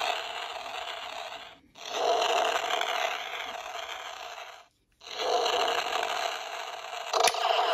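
Toy Power Rangers Dino Fury Morpher playing a hidden flame-burst sound effect through its small speaker, a hissing rush of noise. It sounds three times, each starting loud and fading, with a sharp click near the end as another sound starts.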